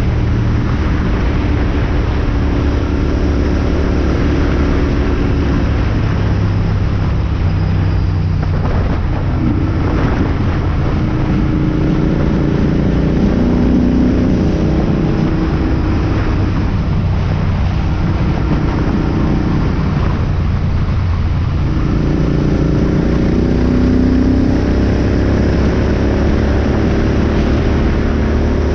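Royal Enfield Continental GT 650's 648 cc parallel-twin engine running hard on the road, its revs climbing and dropping several times with short dips in between, over a steady rush of wind noise.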